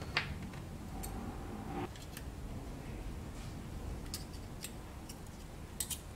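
Scattered small metallic clicks and ticks from a precision screwdriver and steel tweezers handling tiny screws and a thin metal bracket inside an opened iPhone 7, over a low room hum. One sharper click comes just after the start, and a few more come about four seconds in and near the end.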